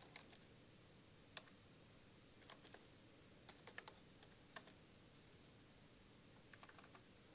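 Faint, sparse keystrokes on a computer keyboard: single sharp key clicks at irregular intervals, some in quick little runs.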